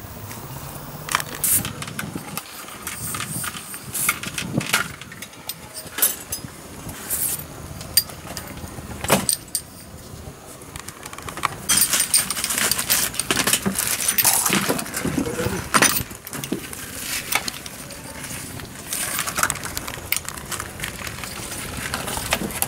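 Clinking, clattering and rattling of veterinary kit being handled: a metal box, a plastic toolbox and syringes knocked and sorted, with many short sharp clicks, busier and louder in the second half.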